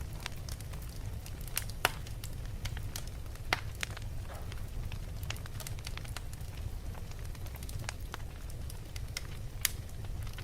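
Fire burning in a fireplace, crackling with scattered sharp pops over a steady low rumble; the loudest pops come about two seconds in, about three and a half seconds in, and near the end.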